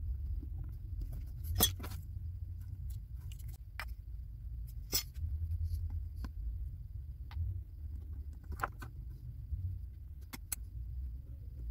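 Scattered sharp clicks and light metallic ticks of a pushpin being pressed through the thin aluminium wall of a soda can, about eight at irregular intervals, over a low handling rumble.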